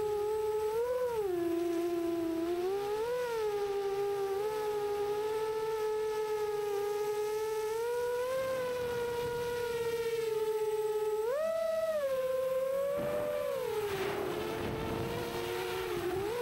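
A 6-inch FPV quadcopter's motors and propellers whining at a steady pitch that jumps up and slides back down several times as the throttle is blipped. A rush of air noise rises under the whine about 13 seconds in and fades near the end.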